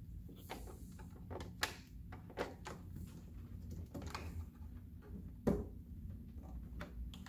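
Hard plastic toy-castle pieces clicking and knocking as a part is handled and snapped into place, with the sharpest snap about five and a half seconds in.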